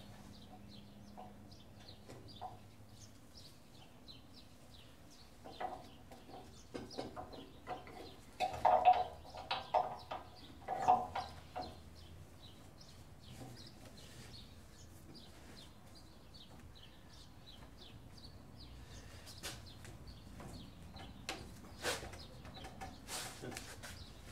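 Chickens clucking in short bursts, loudest about nine to eleven seconds in. A few sharp clicks or knocks near the end.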